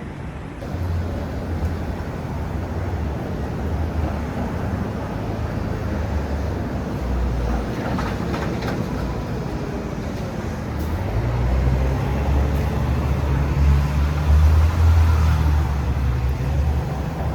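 City street traffic noise, with a steady low rumble that swells louder in the second half as a vehicle goes by.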